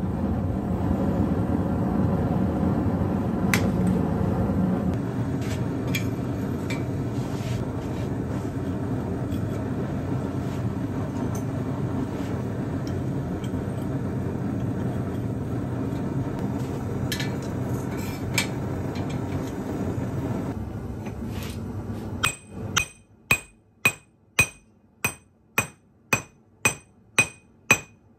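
Gas forge burner running with a steady rushing noise, with a few light clinks of tongs against the forge. About 22 seconds in it gives way to a hand hammer forging a hot 8670 steel knife blank on an anvil, about two blows a second, each with a short metallic ring.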